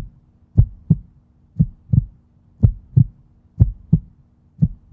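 Heartbeat: low thumps in lub-dub pairs, about one pair a second.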